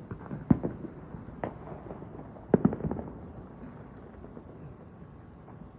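Fireworks going off: a bang about half a second in, another about a second later, and a louder quick run of bangs a little past the middle, then it dies down.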